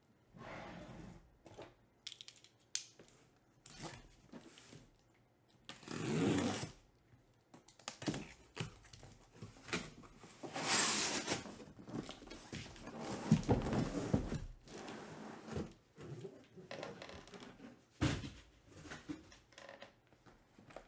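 A cardboard shipping case being torn open and handled by hand: tape and cardboard tearing, flaps and boxes rubbing and scraping in irregular bursts, with a few short knocks.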